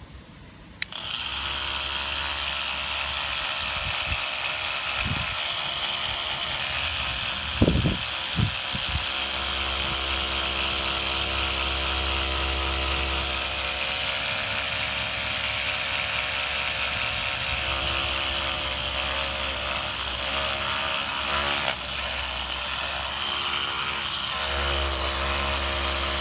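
Small corded electric motor switched on about a second in and running steadily, a whine over a hiss with a low hum, with a couple of knocks from handling.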